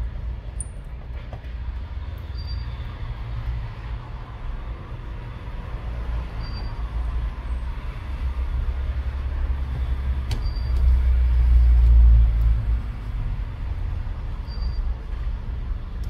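A low, steady rumble that swells briefly about two-thirds of the way through, with faint short high pips about every four seconds and one or two faint clicks.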